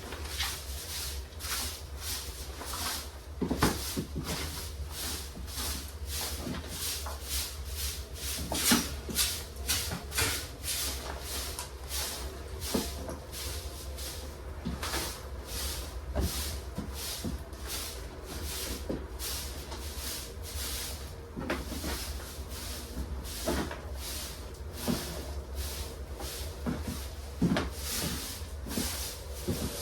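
Irregular light clicks and crackles, several a second, with a few louder knocks, over a steady low rumble.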